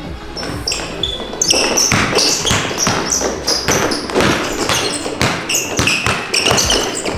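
A basketball being dribbled hard on an indoor court floor, about two bounces a second, in a one-on-one dribble move.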